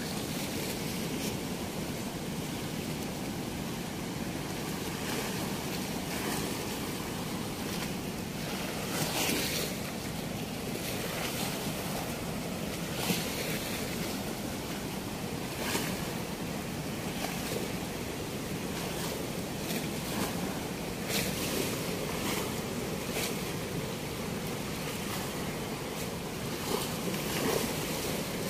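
Steady rush of turbulent water churning below a weir's sluice gate, with a few brief louder moments.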